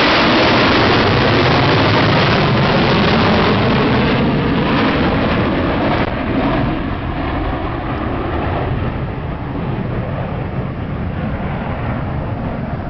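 Military jets in a low formation flyover, a loud roar that fades after about four seconds into a thinner, lower rumble as they pass.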